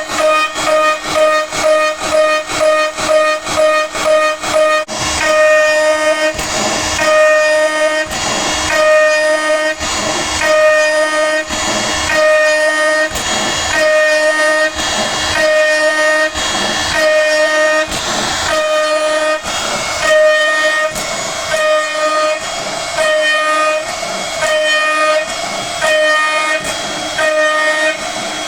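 A DIY CNC router's spindle at 19,000 rpm driving a 5 mm two-flute carbide endmill through mild steel on an adaptive toolpath: a steady high-pitched whine at the tooth-passing rate, with the noise of the cut swelling and fading in a regular rhythm, quickly for the first few seconds and then about once every three-quarters of a second.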